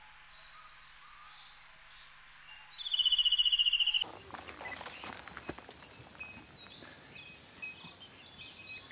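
Mountain forest ambience. A loud, high, fast-pulsing trill lasts about a second and cuts off abruptly. Then songbirds sing rapid runs of short falling notes and other chirps over an irregular rustling.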